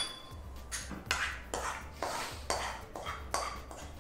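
Cooking utensil scraping and knocking against a pan and a ceramic serving dish as cooked okra masala is spooned out: about eight short scrapes, roughly two a second.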